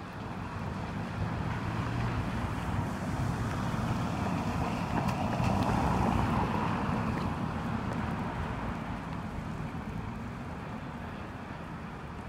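A car passing on a wet road, its tyres hissing on the wet asphalt: the sound swells to a peak about halfway through and fades away again.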